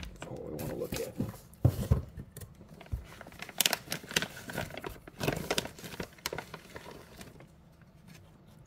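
Thin plastic bag crinkling and rustling as a revolver is pulled out of it, with a couple of light knocks about two seconds in; the rustling thins out near the end.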